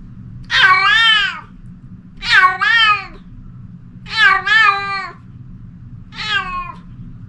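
Domestic cat meowing loudly four times, each call about a second long and falling in pitch at its end, the last one shorter.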